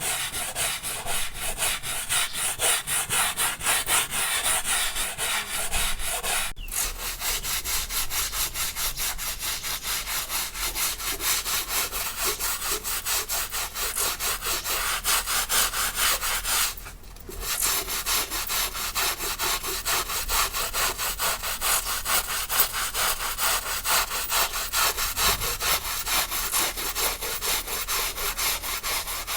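Rapid, steady back-and-forth rubbing strokes, like hard scrubbing, broken by two brief pauses about six and seventeen seconds in.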